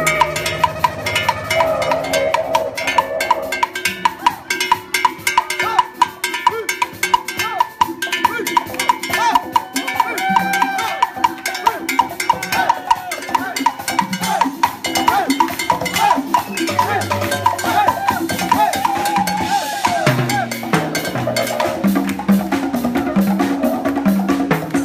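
Live Latin percussion ensemble playing a salsa-style groove: a cowbell struck in a steady pattern over timbales and congas, with a wavering pitched melody above. A repeating low stepping pattern joins about 20 seconds in.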